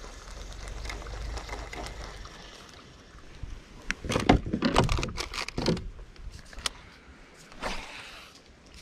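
A kayak being paddled: a low rumble at first, then a run of hard knocks and clunks about four to six seconds in, and a softer swish near the end.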